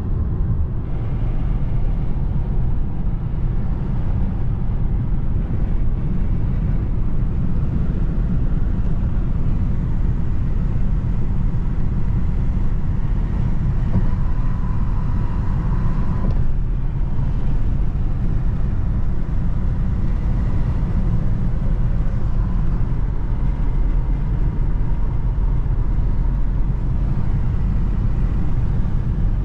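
Steady road, tyre and engine noise heard inside the cabin of a 2024 Toyota Corolla cruising at highway speed, a constant low rumble.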